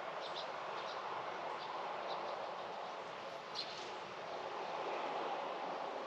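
Outdoor ambience: faint short bird chirps, a handful of them, the clearest about three and a half seconds in, over a steady rushing background noise.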